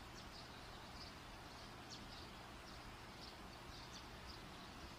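Near silence: a faint steady hiss with short, faint, high chirps scattered through it.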